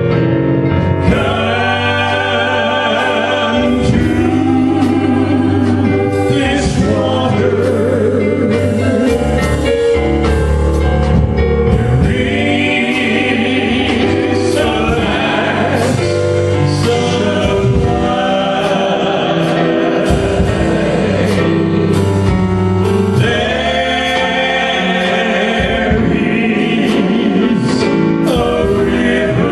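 Gospel worship song with sung vocals and a backing band with a steady beat.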